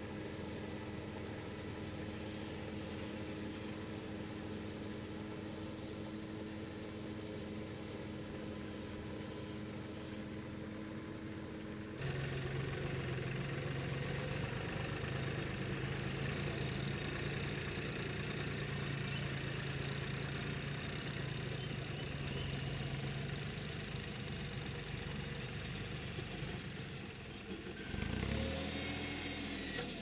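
Tractor engines running steadily, driving tractor-drawn forage harvesters that chop green fodder and blow it into trailers. The sound changes abruptly to a louder engine note about twelve seconds in. Near the end an engine note dips and then rises again.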